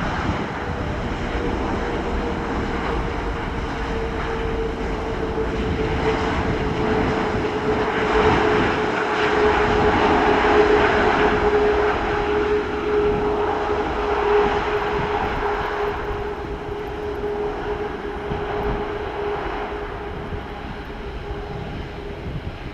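Boeing 787-9's Rolls-Royce Trent 1000 jet engines running during the landing rollout: a steady rush with a whine that slowly drops in pitch. It swells to its loudest about ten seconds in, then eases off as the airliner slows.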